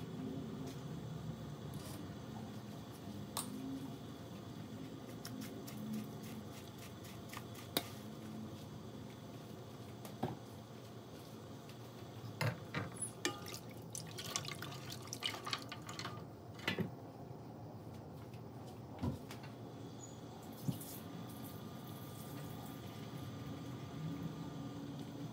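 Beef broth simmering in a metal pot, with faint bubbling ticks and drips. A cluster of sharp knocks comes partway through as ground spice is added and stirred in, a spoon striking the pot.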